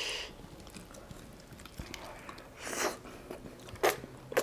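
A person biting into and chewing a piece of braised turkey tail: quiet eating sounds, with a sharp click near the end.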